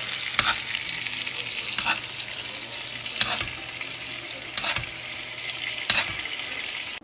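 Wagyu ribeye steak sizzling in foaming butter over high heat in a stainless pan, a steady crackling hiss. A metal utensil knocks against the pan with a sharp click about every second and a half, five times in all.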